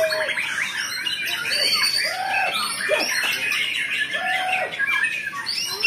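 Several caged white-rumped shamas singing at once: a dense tangle of rapid chirps and trills, with a few low, arching whistled notes mixed in.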